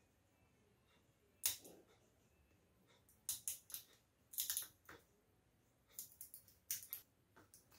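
Needle-nose pliers clicking and snapping against a small T10 wedge-base bulb, in short clusters of sharp clicks, the first about a second and a half in.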